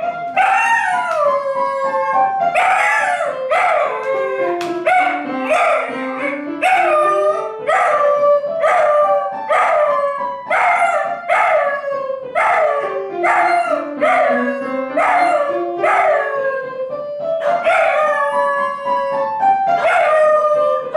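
Young Welsh Corgi howling along to music in a string of short howls, each sliding down in pitch, about one every two-thirds of a second. Beneath them, a low run of single musical notes steps slowly down and back up.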